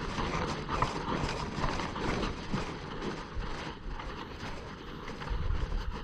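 Wind buffeting the microphone with an uneven low rumble, broken by scattered short clicks and knocks.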